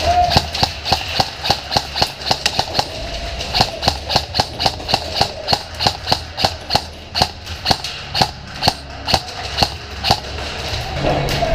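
Airsoft gunfire: a long string of sharp single shots, about three or four a second, irregularly spaced, over a low steady hum.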